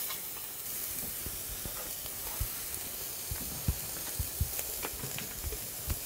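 Steady hiss with a scattering of short, soft knocks from about two seconds in.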